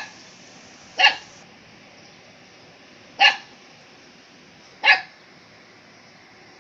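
A dog barking in short single barks, spaced one to two seconds apart: one right at the start, then three more at about one, three and five seconds in.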